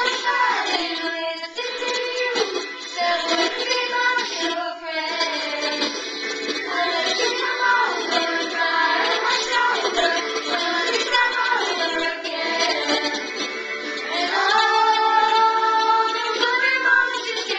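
Girls singing a pop song together over recorded backing music, growing louder with long held notes in the last few seconds.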